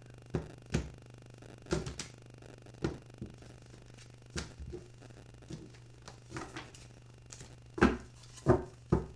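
Tarot cards being handled and laid out: a string of short sharp taps and snaps at irregular intervals, loudest near the end, over a faint low steady hum.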